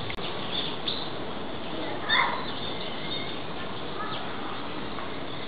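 Bird-like chirps over a steady background hubbub, with one short, louder call about two seconds in.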